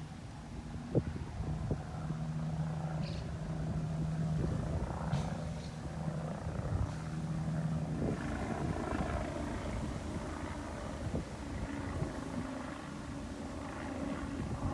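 A domestic cat purring close to the microphone, a continuous low rumble with light rustling and handling clicks.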